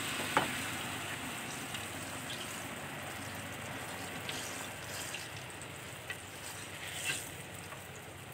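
Banana fritters deep-frying in a wok of hot oil: a steady sizzle with sharp crackles now and then, one a little louder about seven seconds in.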